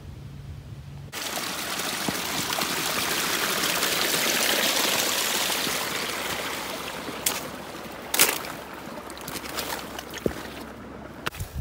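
Stream running over rocks, a rushing water sound that starts suddenly about a second in, swells and then slowly fades. A few sharp knocks come in the second half.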